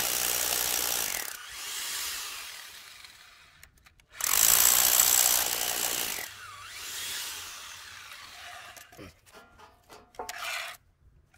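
Rotary hammer drill boring into concrete with a long masonry bit, in two runs of about one and two seconds, each trailing off as the drill winds down. A few short knocks near the end.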